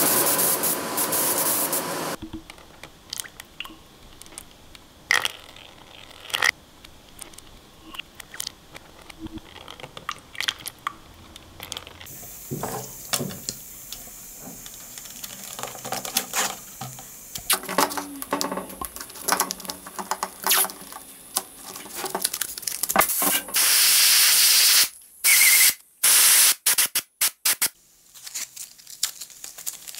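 Air-fed paint spray gun hissing as it sprays, cutting off abruptly about two seconds in. Then come scattered small clicks and crinkles of masking tape being pulled off the roll and pressed on, and a few short bursts of hiss near the end.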